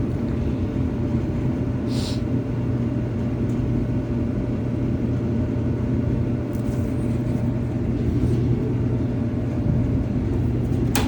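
Samsung DV40 clothes dryer running on test with its newly replaced idler pulley: a steady motor hum and drum rumble, with a brief higher-pitched sound about two seconds in.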